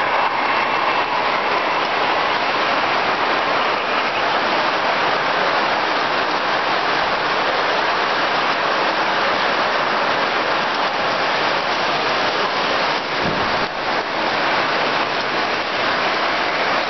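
Model freight train rolling past close by: a steady rushing clatter of its metal wheels running along the track.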